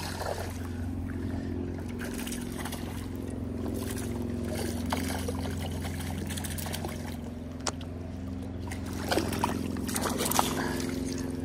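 A hooked rainbow trout splashing and thrashing at the river surface as it is reeled in on a light spinning rod, with a few sharper splashes near the end as it is brought into the landing net. A steady low hum runs underneath.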